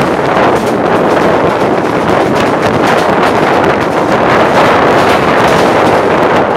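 Wind buffeting the microphone from the open door of a moving passenger train, a loud steady rush over the running noise of the coach on the rails.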